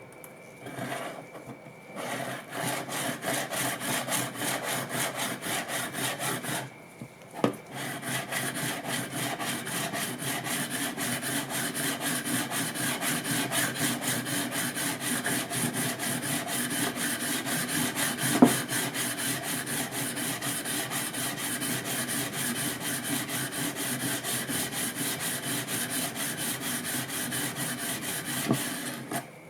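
Steel plane blade being honed with quick back-and-forth strokes on a sharpening stone, about three strokes a second, grinding out the chips in its edge. The strokes pause briefly with a knock a quarter of the way in, and there is another sharp knock about midway.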